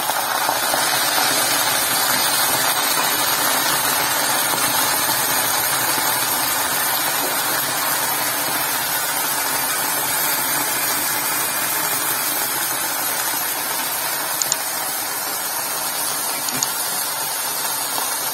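Steady sizzling hiss of water heating in a hot iron kadai of agathi leaves, just after a tumbler of water has been poured in. It eases off slightly towards the end.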